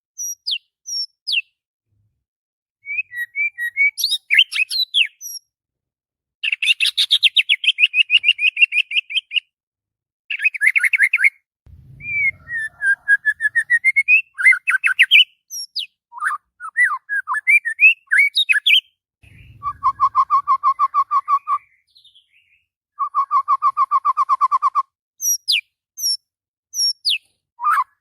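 White-rumped shama singing loudly in separate phrases: rapid trills, clear whistles and sharp sweeping notes, with short pauses between them.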